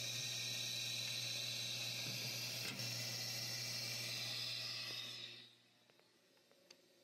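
Steady whir of the laser engraver's cooling and exhaust fan, with a low hum under a hiss, running after the cut and ending about five seconds in. A light knock sounds near the middle, and a few faint handling clicks follow in the quiet.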